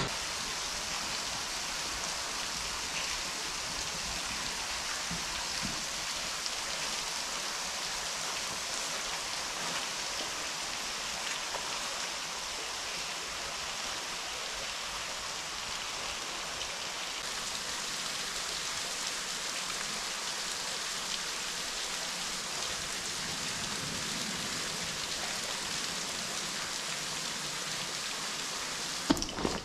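Running water splashing over rock, a steady, even rush with no individual drips standing out.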